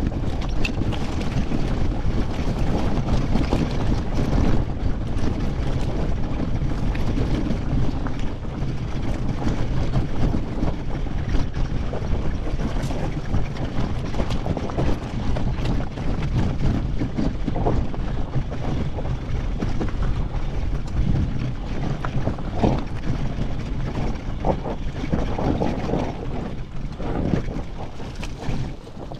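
Honda CR500's single-cylinder two-stroke engine running along a rocky trail, with wind buffeting the microphone. It gets a little quieter near the end as the bike pulls up.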